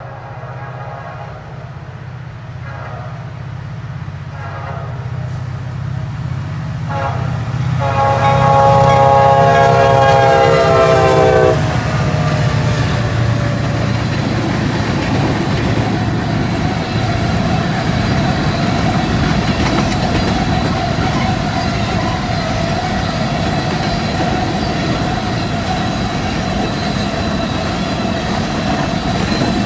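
Diesel freight train approaching with a low engine rumble, its horn blowing, ending in one long loud horn blast about seven to eleven seconds in. After that, covered hopper cars roll past with steady wheel and rail noise and a thin steady tone.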